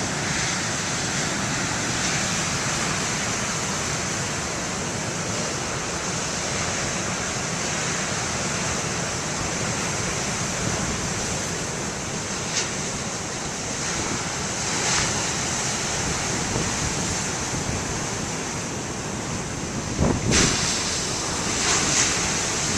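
Big ocean waves breaking and surf washing in a steady, continuous rush, with a few louder surges and one sharp thump about twenty seconds in.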